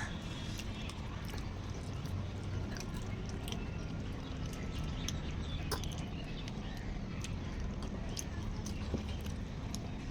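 People chewing and biting food, with many small irregular clicks and crunches, over a steady low hum.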